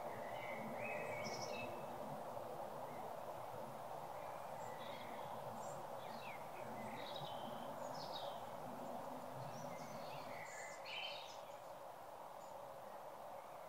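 Evening ambience: short bird chirps and calls come and go over a steady background rush, with a small flurry of calls about ten seconds in.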